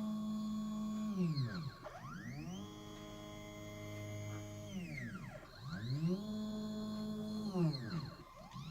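Stepper motors of a mini CNC machine running through programmed moves, with a pitched whine that rises as each move speeds up, holds steady, then falls as it slows. About three moves, with a fourth, short one starting near the end.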